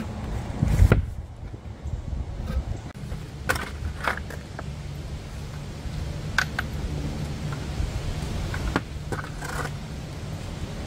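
Plastic recovery traction boards being handled: a heavy thump about a second in as a board comes off the metal roof rack, then scattered sharp clacks and scrapes as the boards are set down on the ground.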